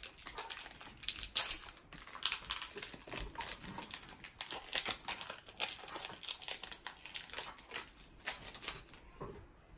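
A baseball card pack's foil wrapper crinkling and tearing as it is pulled open by hand: a dense run of sharp crackles that dies away near the end.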